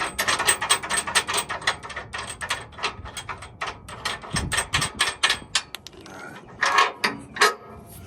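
A ratchet clicking rapidly, about five or six clicks a second, while the tow rigging is being worked loose, with a dull thud about halfway through and a couple of louder metal clanks near the end.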